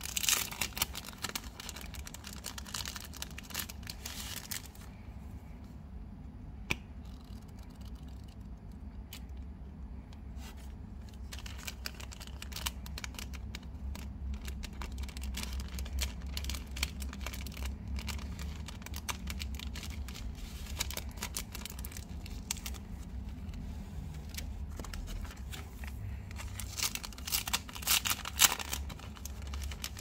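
Clear plastic wrapping on a notebook crinkling and tearing as it is peeled off and handled, in bouts at the start, around the middle and near the end, with quieter rustling between and a steady low hum underneath.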